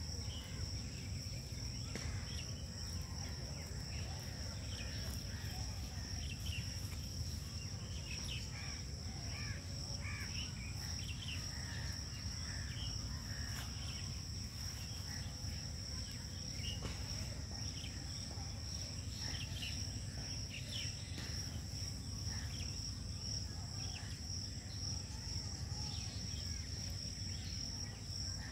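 Insects chirring in a steady, high-pitched pulsing trill, over a low steady rumble, with scattered faint short chirps.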